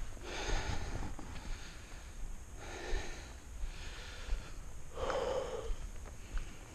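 A man's heavy, labored breathing close to a body-worn camera's microphone: he is out of breath. There are three deep breaths about two and a half seconds apart, the last the loudest, over a low wind rumble on the microphone.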